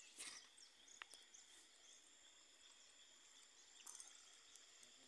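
Near silence: faint riverside ambience of steady high-pitched insect trilling with a few short bird chirps.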